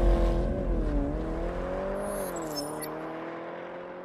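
Car engine sound with a gently wavering pitch, fading away steadily.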